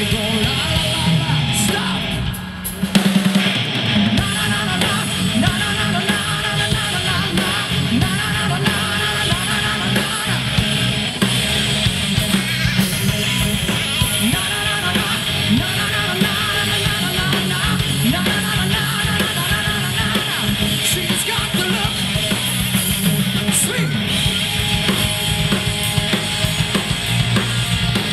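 Live rock band playing on stage: drum kit, bass and electric guitar. About two seconds in the band drops out briefly, then comes back in with a loud hit.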